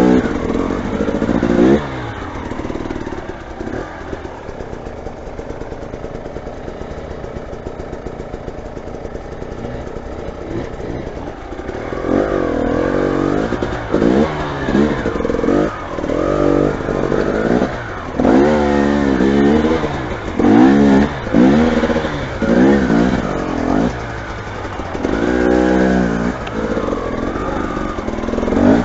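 Motorcycle engine running at low revs, then revved up and down again and again in short blips about a second apart through the second half.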